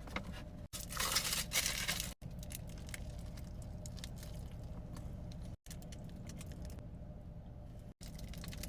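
Close-up burrito-eating sounds spliced from several short clips: the foil wrapper crinkles and tears loudly about a second in, then come smaller clicky, squishy food and mouth sounds over a low hum.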